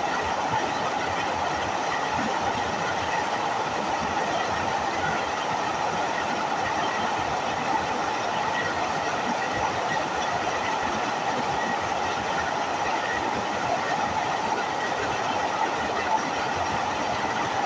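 Waterfall: water falling and rushing in a steady, even roar with no breaks.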